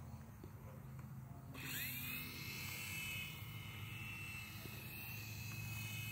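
Small remote-control toy helicopter's electric motor and rotor spinning up about a second and a half in, the whine rising in pitch, then holding a steady high whine as it flies.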